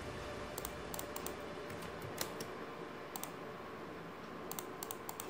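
Computer keyboard keys and clicks tapped irregularly, single sharp taps and short runs, over a faint steady background hiss.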